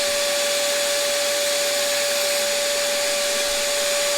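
A shop vacuum running together with a Harig Super 612 surface grinder during a wheel-dressing pass with a diamond dresser: a steady rushing noise with a constant whine.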